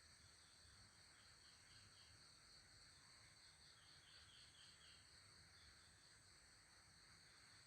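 Faint, steady high-pitched insect chirring with rows of short, quick falling chirps, near silence otherwise.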